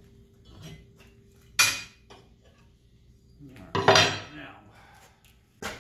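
Steel straightedges and rulers clanking as they are picked up and set down on sheet steel: a sharp knock about a second and a half in, a louder clatter around four seconds in, and a short knock near the end.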